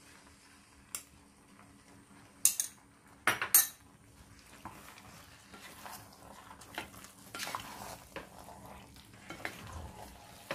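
A metal spoon clinks sharply against a pan four times in the first few seconds as salt is added. Then a wooden spatula stirs chunky vegetables in the non-stick pan with a soft, continuous scraping.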